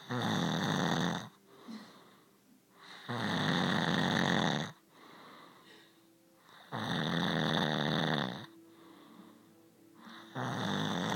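A man snoring loudly: four long snores, each about a second and a half, coming about every three and a half seconds, with much quieter sound in between.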